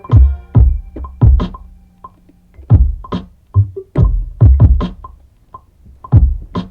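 Electronic instrumental beat: drum-machine kicks and sharp snare hits over synthesizer notes. A held low bass note drops out about two and a half seconds in.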